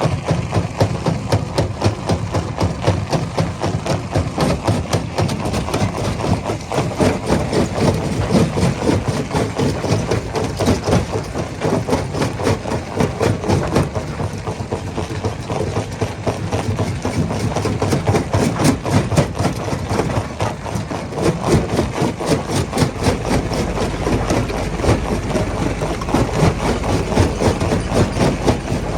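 Rock crusher running under load: a steady heavy engine drone with dense, rapid knocking and clattering throughout.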